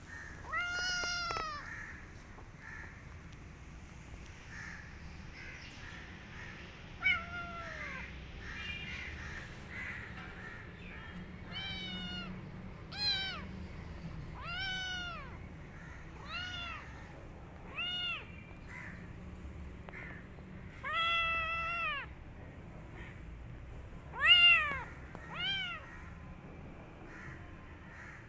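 Kitten meowing again and again: about ten short, high-pitched mews spaced a few seconds apart, each rising then falling in pitch, the loudest near the end.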